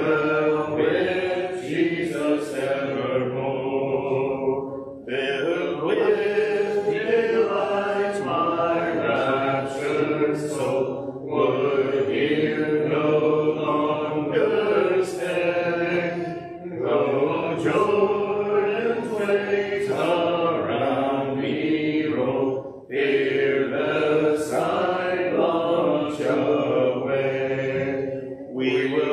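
A congregation singing a hymn a cappella, without instruments. The sung lines are broken by short pauses about every five or six seconds.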